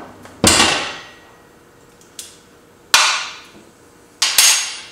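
Steel hand tools clanking against metal: three sharp metallic clanks, each ringing out briefly.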